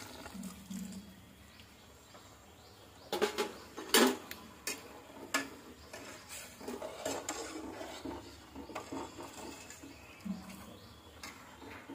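A stainless steel slotted spoon clinking and scraping against a steel pot while stirring milk into cooked vermicelli. The strokes come irregularly, with a cluster of sharp clinks about three to five seconds in, the loudest near four seconds.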